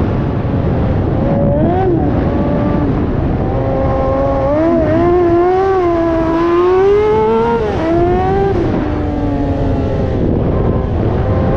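Kawasaki ZX-6R 636 inline-four sportbike engine in a TRX450R quad, running hard with its pitch rising and falling through the revs. It makes one long climb in the middle, then drops off near the end.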